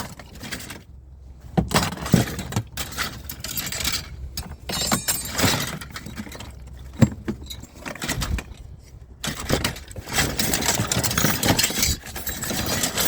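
Small metal tools and scrap clinking and clattering against each other as they are rummaged through by hand, in irregular knocks, growing busier near the end.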